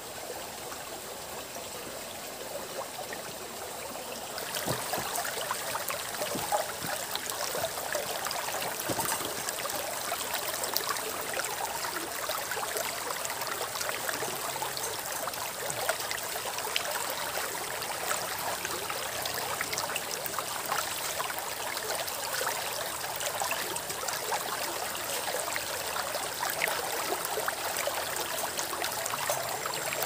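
Shallow rocky stream running and rippling over stones, a steady water sound that gets louder about four seconds in.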